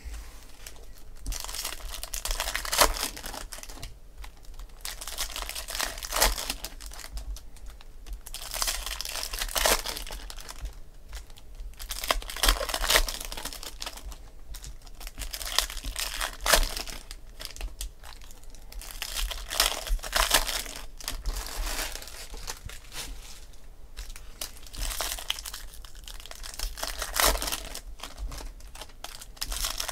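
Foil wrappers of Topps Chrome Jumbo baseball card packs being torn open and crumpled by hand, in repeated bursts of crinkling every second or two.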